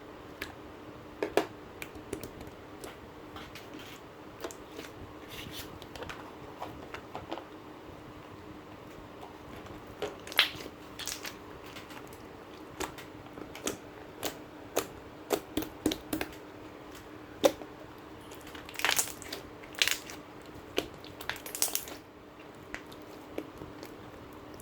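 Slime being squeezed and pressed by hand, making irregular squishy pops and clicks. A run of louder pops comes near the end.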